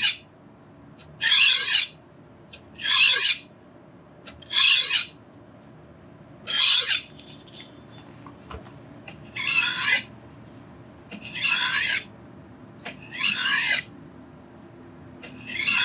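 Kitchen knife blade drawn across a 3000-grit Mountain whetstone: eight rasping scraping strokes, about one every two seconds, with a longer pause midway.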